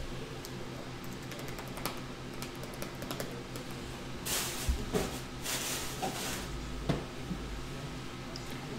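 Trading cards and a card booklet being handled: faint clicks, then about two seconds of rustling and scraping midway with a few light knocks, over a steady low hum.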